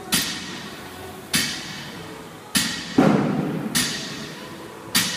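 Loaded barbells with plates thudding down onto a rubber gym floor, six impacts a little over a second apart, each with a short ringing tail; the one about three seconds in is the loudest and heaviest.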